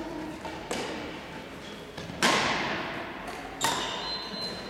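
Badminton rackets striking a shuttlecock: three sharp smacks about a second and a half apart, the middle one the loudest, each trailing off in the echo of a large hall.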